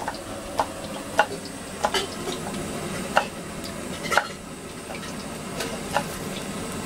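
Onion fritter batter being worked by hand in a steel bowl beside a wok of frying oil: a low steady sizzle with about nine sharp clicks and pops at uneven intervals.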